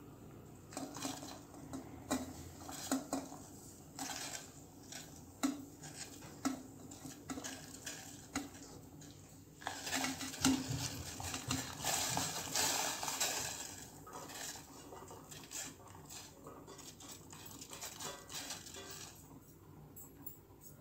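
Stainless-steel plate clinking and tapping against a steel pot as rice-flour dumplings are pushed off it by hand into boiling water. About ten seconds in comes a longer stretch of scraping as the plate is tipped and the rest of the dumplings are swept off.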